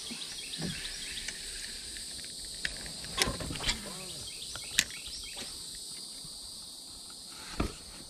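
Insects buzzing steadily in the background, with a few sharp knocks and clicks close by, four of them loudest, spread through the middle and near the end.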